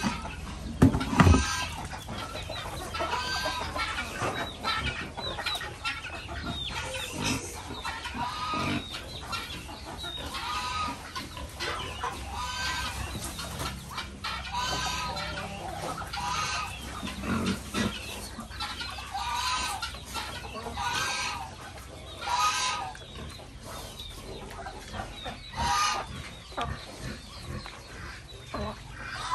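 Chickens clucking again and again in short calls, with a loud, brief low thump about a second in.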